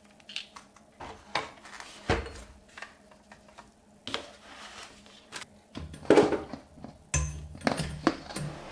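Handling noise from a power adapter and its cord: scattered clicks and knocks on the table, a heavier thump about two seconds in, and more clatter near the end as the plug is pushed into the back of a compact photo printer.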